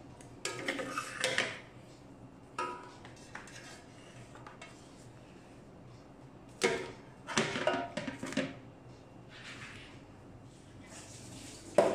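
Plastic dough scrapers scraping and tapping on a stone-tiled tabletop while a ball of dough is shaped. Partway through, a cluster of knocks and scrapes as the dough is lifted into the Kenwood BM250 bread machine's metal baking pan.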